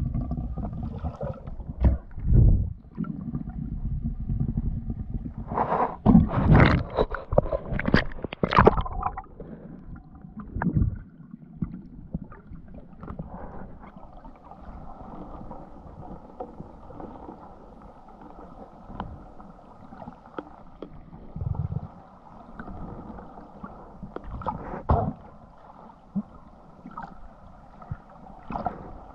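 Muffled underwater noise around a diver's camera: water rushing and gurgling as the spearfisher swims, with a loud burst of sloshing and bubbling about a quarter of the way in, then a quieter steady hum.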